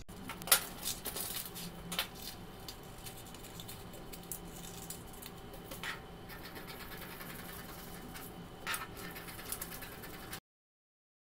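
Scissors cutting along curved lines through stiff brown pattern paper: irregular snips and scratchy paper rustling as the pieces are cut and shifted on the table. The sound cuts off abruptly about a second before the end.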